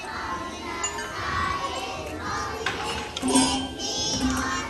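Young children's voices in unison with classroom hand percussion: tambourines jingle and drums are struck. About three seconds in there is a louder hit with a jingle, and a low note then sounds a few times.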